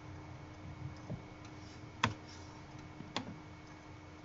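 Clicking at a computer: two sharp clicks about a second apart, with a fainter, duller click before them, over a faint steady hum.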